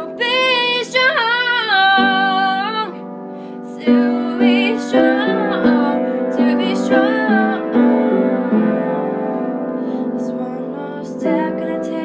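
A woman singing to her own upright piano accompaniment. Her voice holds long wavering notes over the piano in the first three seconds; from about four seconds in, the piano's changing notes come to the fore, with the voice coming in again near the end.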